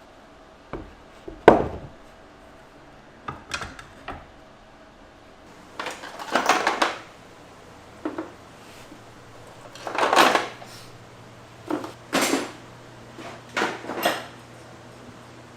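Irregular knocks and clatters of hard objects, such as wooden parts or tools, being handled and set down, about a dozen in all. The loudest is a sharp knock about a second and a half in.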